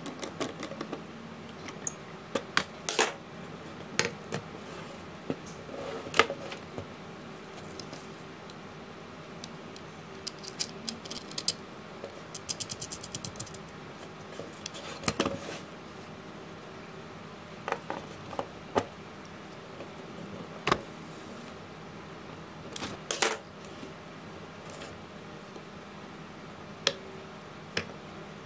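Scattered clicks and knocks of small metal screws, a screwdriver and a metal-and-spring RC shock absorber being handled against a hard 3D-printed plastic pedal, with a quick run of ticking about halfway through.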